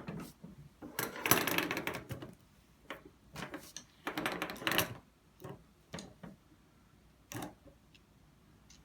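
A cat's toy clattering and rattling as it is batted across a tabletop: two longer bursts of rapid rattling and several short sharp clicks.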